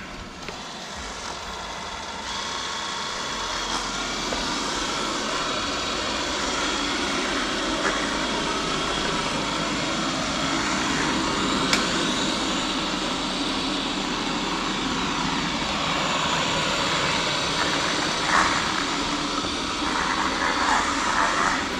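Roborock S8 robot vacuum starting a cleaning run: its suction fan spins up over the first few seconds, then runs steadily as it cleans, with a single click about halfway through.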